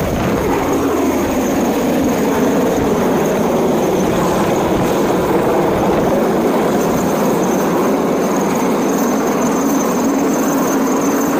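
Chinese Navy helicopter hovering low overhead, a steady loud rotor and engine noise mixed with the rush of its downwash. A tone slides down in pitch during the first couple of seconds.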